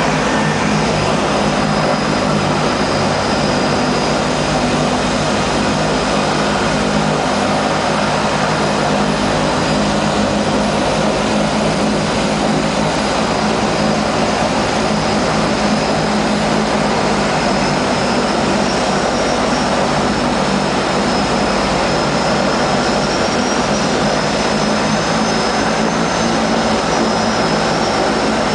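Twin turboprop engines of a DHC-6 Twin Otter floatplane running steadily, heard from inside the cabin as a loud, even drone with a steady high whine over it.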